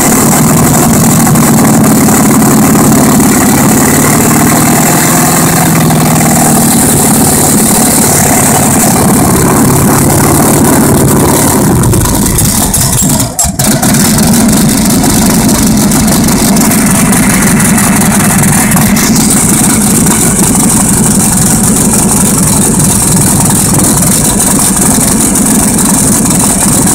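Turbocharged 2332cc air-cooled VW flat-four idling loudly. About halfway through the sound dips briefly, then the engine runs on with a rougher, deeper note.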